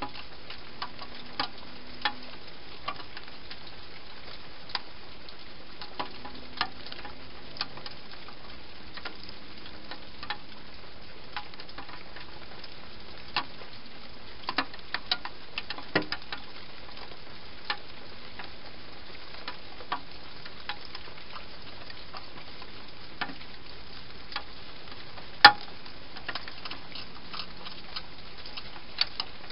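Hedgehog eating dry food inside a plastic feeding box: irregular sharp clicks and crunches of chewing over a steady hiss, with one louder click about 25 seconds in.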